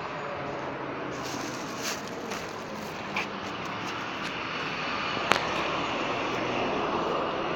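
Street traffic: a steady noise of passing motor vehicles that grows a little louder after about five seconds, with one sharp click about five seconds in.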